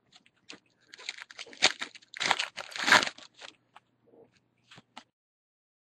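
Foil wrapper of a trading card pack being torn open and crinkled, followed by a few light clicks as the cards are handled.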